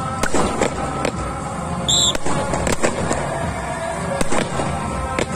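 Sharp slaps and knocks of rifles being handled in a drill over background music, with one short, high whistle blast about two seconds in.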